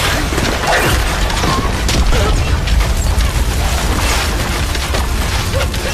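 Film sound of a large fire burning thatch and timber: a deep continuous rumble with dense crackling and crashing impacts.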